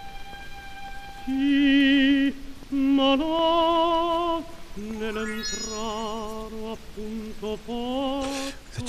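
Background music: an operatic voice singing long held notes with a wavering vibrato, one note after another.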